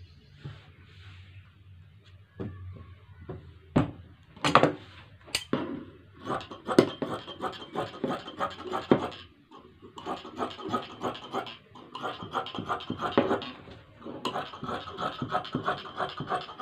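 Large fabric shears cutting through cloth: a few sharp clicks in the first half, then runs of quick crunching snips in several stretches with short pauses between them.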